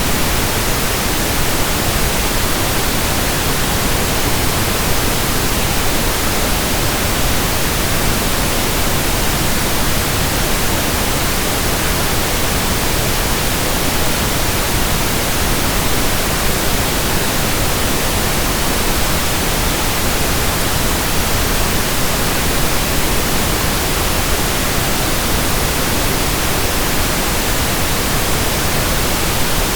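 Steady pink noise: an even, unbroken hiss spread across the whole range, with no change in level or character.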